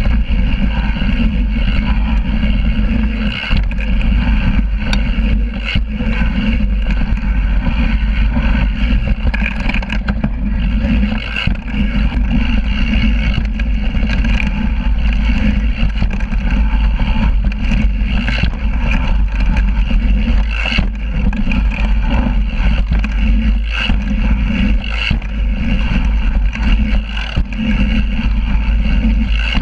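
Yeti full-suspension mountain bike riding fast down a dirt trail: a steady loud rumble of wind and the knobby rear tyre rolling over dirt, heard close to the back wheel, with frequent short rattles and knocks from the bike over rough ground.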